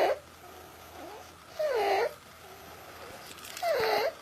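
Stridor: a high-pitched, wavering noise on each breath, loud for about half a second roughly every two seconds, with a softer noise between the loud ones. It is the sign of a narrowed upper airway.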